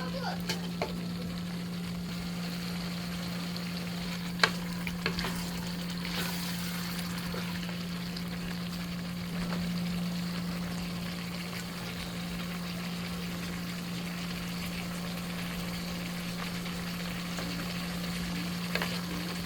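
Food sizzling steadily in a pot while the stew is being cooked, with a few sharp clinks of a utensil against the pot, the loudest about four seconds in. A steady low hum runs underneath.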